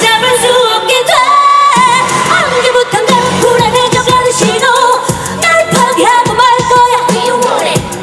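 Upbeat Korean pop song performed live, a woman singing over a steady dance beat through a loud sound system.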